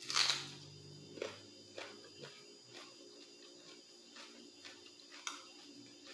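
A bite into a piece of raw white onion held to the mouth, a short loud burst just after the start, followed by close-up chewing and a metal spoon clicking against the plate several times.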